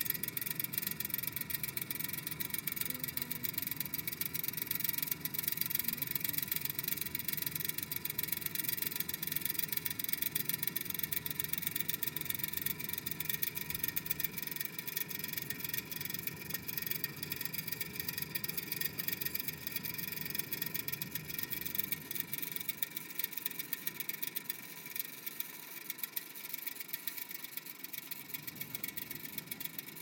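Steel guy cables of an antenna mast vibrating and humming: a steady drone of several held tones at once, easing off a little in the last third.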